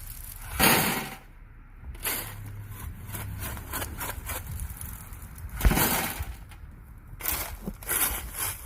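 Backfill being shovelled by hand: two loud, crunching shovel scoops about five seconds apart, with small clicks and knocks of loose material between them.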